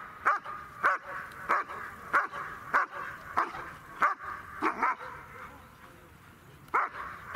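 A dog barking in a steady series, about one bark every 0.6 seconds, for about five seconds. After a pause of about two seconds it gives two more barks near the end.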